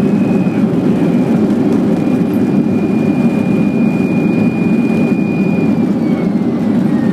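Boeing airliner's cabin noise during the landing rollout: a loud, steady rumble of the jet engines and wheels on the runway, with a thin high engine whine that slides down in pitch near the end.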